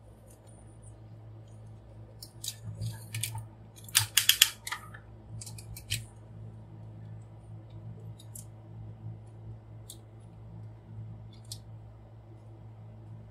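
Parts of a large transforming robot figure clicking and rattling as it is handled, with a quick cluster of sharp clicks about four seconds in and a few single clicks later on.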